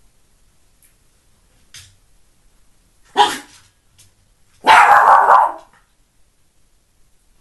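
Norfolk terrier barking twice at a balance ball: a short bark about three seconds in, then a louder, longer one about a second later.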